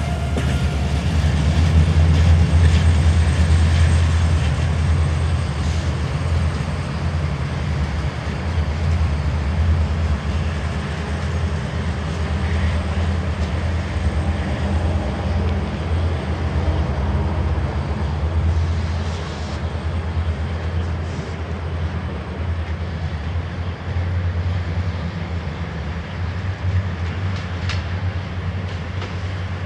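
CFR Class 65 GM diesel locomotive pulling away with a train of double-deck coaches: the engine's deep steady drone under the rumble of the wheels on the track. The sound slowly fades as the train draws away, with a few wheel clacks in the second half.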